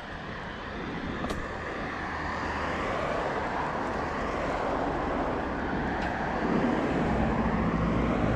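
Cars passing on the road alongside: tyre and engine noise swelling gradually, loudest near the end as a car goes by close.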